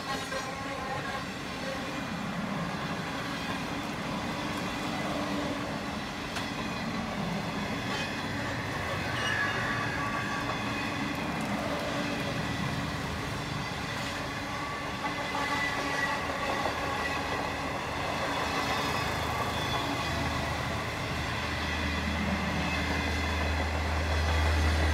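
A long passenger train's stainless-steel coaches rolling past, a steady noise of steel wheels running on the rails. A deeper low rumble builds in the last few seconds.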